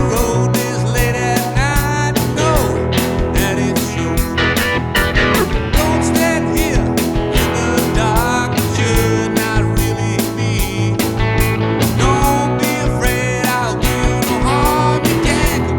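Rock music with a steady drum beat, guitar and singing.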